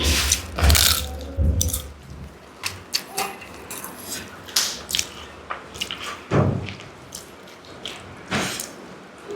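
Close-miked eating: wet chewing and smacking with irregular sharp mouth clicks, and a few heavier low thumps in the first two seconds and again past six seconds.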